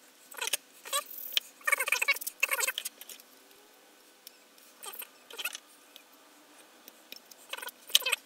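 Handling noise: fingers rubbing and scraping on a plastic model aircraft, in short scratchy, squeaky bursts with quiet gaps between them.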